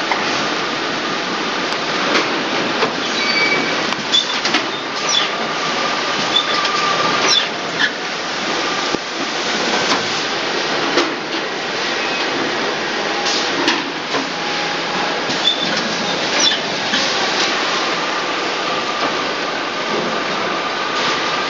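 Produce packing line running: conveyors and a punnet-clipping flow-wrap packing machine give a steady mechanical din, with frequent irregular clicks and clacks.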